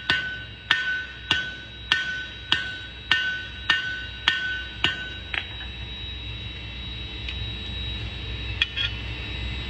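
Hammer blows on steel over an anvil at a steady pace, about ten blows roughly 0.6 s apart, each leaving a clear metallic ring; the hammering stops about five seconds in, leaving a low steady hum and a few light taps.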